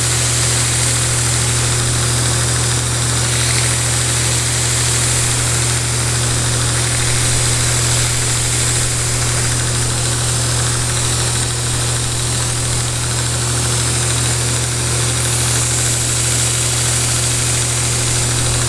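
Grizzly belt grinder running steadily, its motor humming under an even hiss, while a steel broadhead is ground against its worn-out 220-grit belt to raise a burr on the edge.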